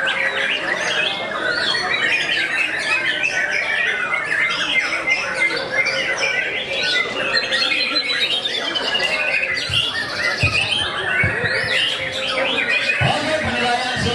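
Many caged white-rumped shamas (murai batu) singing together in a songbird contest: a dense, unbroken chorus of overlapping whistles, rapid chatter and harsh squawks. A few low thumps come in about ten seconds in.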